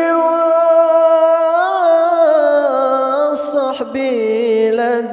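A solo voice sings an Arabic sholawat, holding a long, ornamented note on 'wal-al'. It takes a quick breath about three and a half seconds in, then moves on to 'wa-shahbi'.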